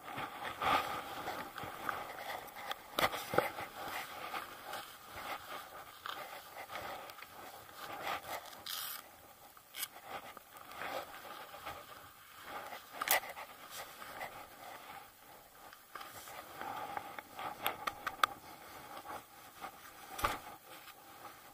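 Boots crunching into deep snow step by step, with jacket fabric rustling and ski poles scraping and clicking now and then, as a skier climbs on foot.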